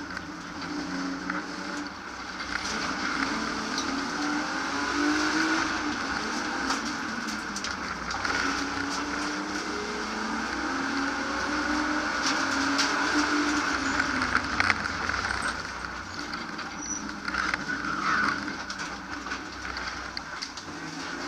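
BMW E36 328i's straight-six engine, heard from inside the stripped race cabin, driven hard. The engine note climbs and falls again and again as it accelerates and backs off between corners, over steady road and tyre noise with sharp rattles.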